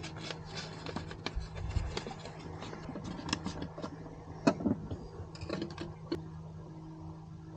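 Paper coffee filter crinkling as it is folded and pressed into a pour-over holder, with small taps and clicks, the loudest about halfway through, over a steady low hum.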